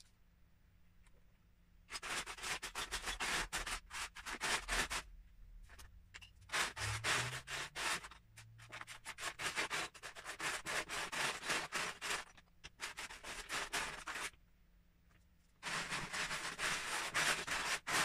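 Loose Lego bricks clattering and scraping against a clear plastic storage tub as hands rummage through them, in long spells of dense rattling that start about two seconds in and pause briefly near the end.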